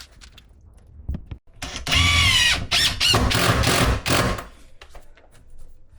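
Cordless drill driver running for about three seconds, its motor pitch wavering as it drives a 30 mm screw through the side of a wardrobe panel.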